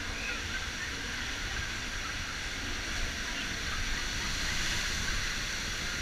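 Water rushing and churning in a river rapids ride's channel around the raft: a steady hiss with a low rumble underneath, swelling a little about two-thirds of the way through.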